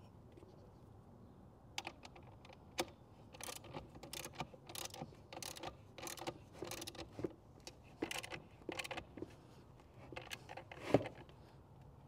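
Socket ratchet wrench clicking in short bursts as it tightens the bolt on a battery's positive terminal, with one sharper click near the end.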